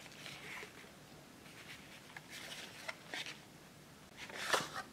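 Cardboard box and paper sleeve handled by hand, rubbing and rustling, with a louder scrape about four and a half seconds in as the round inner container slides out of the sleeve.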